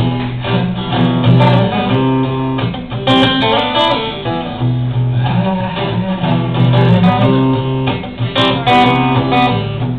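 Acoustic guitar strummed in a steady chord rhythm: an instrumental passage of a song with no singing.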